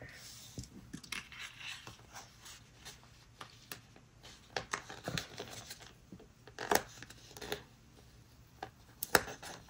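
Faint rustling, scratching and peeling of sticker paper being handled and pressed onto a planner page, with several short sharp ticks and taps scattered through.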